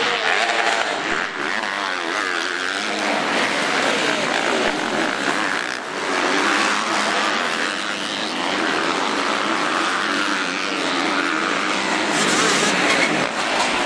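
Several motocross bikes' engines revving hard as they race, the pitch rising and falling with the throttle.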